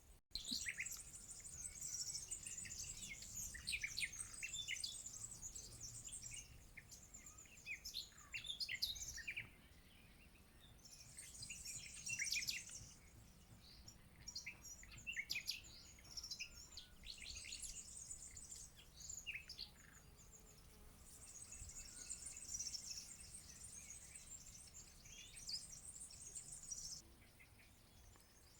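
Small songbirds singing in bouts of high, rapid twittering and trills, with short pauses between phrases.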